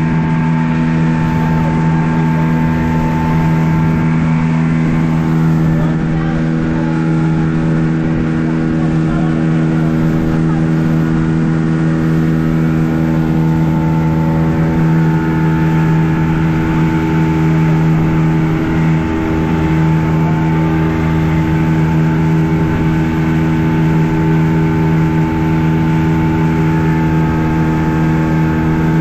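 Boat's outboard motor running steadily at cruising speed, a loud constant drone that holds one pitch throughout.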